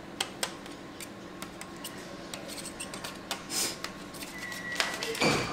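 Kitchen knife cutting through soft blocks of tofu in a disposable aluminium foil pan: scattered light clicks and taps of the blade against the foil, with a louder scrape near the end.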